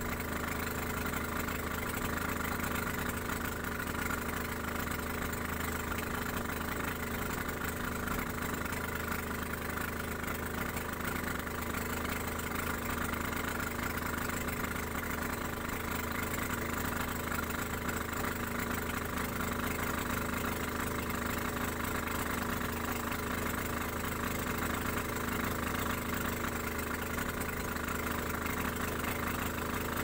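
Engine of a motorized outrigger fishing boat running steadily as the boat travels under way, its pitch and loudness unchanging.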